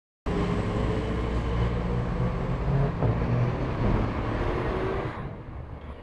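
A motor vehicle engine running with a steady low hum, dropping away sharply about five seconds in.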